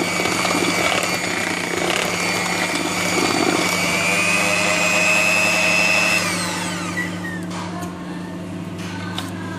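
Electric hand mixer beating chocolate cake batter in a bowl, its motor whining steadily and rising slightly in pitch, then switched off and winding down about six seconds in.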